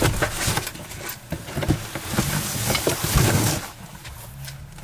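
Cardboard boxes and gear being handled and shoved into the cargo area of a Land Rover Defender: rustling, scraping and several knocks and thumps, with a low steady hum underneath near the end.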